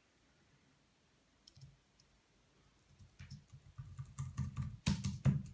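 Keys on a computer keyboard pressed and tapped in an irregular run of clicks with soft knocks. The clicks start faintly, thicken from about halfway, and are loudest in two sharp clicks near the end.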